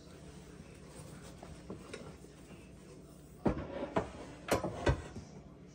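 Metal frying pans clanking as they are set down and stacked on a kitchen cabinet shelf. A few faint ticks, then four or five sharp clanks close together starting about three and a half seconds in.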